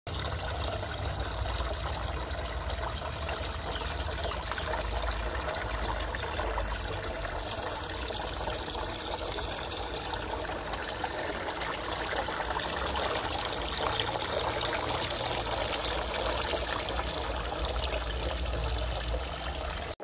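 Water trickling steadily from a waterfall filter into a small cement fish tank.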